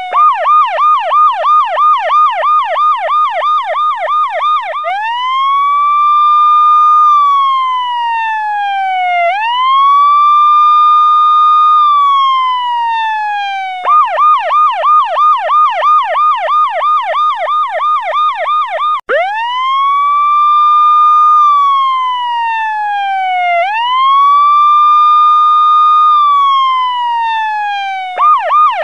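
Electronic police-style siren sounding as an alarm, switching between a fast yelp of about three pitch cycles a second and a slow wail that rises and falls. The yelp runs for about five seconds at the start and again midway, with two long wail sweeps after each, and the yelp returns near the end.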